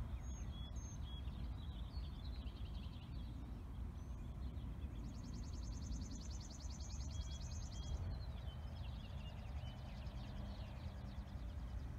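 Backyard birdsong: scattered short high chirps, and a dry rapid trill lasting about three seconds midway through, over a steady low rumble.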